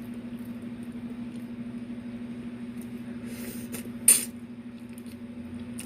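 Close-miked eating sounds as oxtail is chewed, with a sharp mouth smack just after four seconds in, over a steady low hum.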